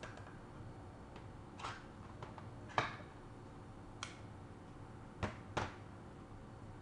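An easy-open can of all-purpose cream being opened by its pull-ring lid: a handful of separate sharp clicks and snaps. The loudest comes about three seconds in, and two more come close together near the end.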